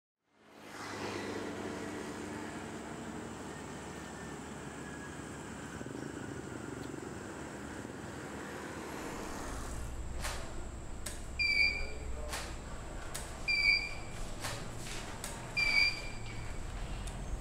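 A steady background noise fades in, then a photo studio: sharp camera shutter clicks, three of them each followed about half a second later by a short electronic beep, the ready signal of studio flash heads recycling after firing. A low hum sits under the clicks.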